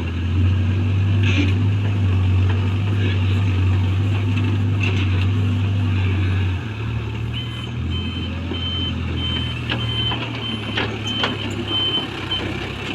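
JCB backhoe loader's diesel engine running, loud for about the first half and then dropping to a lower level. Its reversing alarm beeps steadily for the last five seconds or so, with a few sharp knocks near the end.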